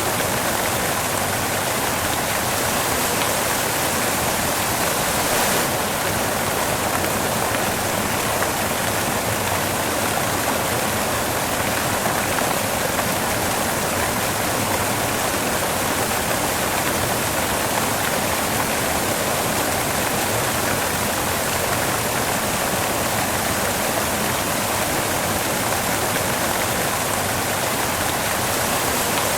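Steady white noise: an even, unbroken hiss with little bass.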